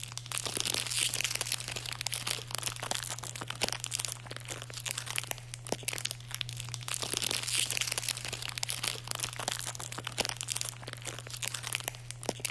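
Dense crackling and crinkling, thick with small clicks and pops, over a steady low hum.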